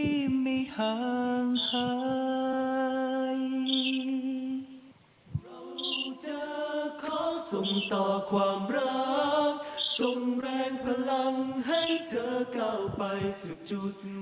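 Unaccompanied vocal music: singing voices holding long notes, with a brief break about five seconds in before the singing resumes and moves through changing pitches.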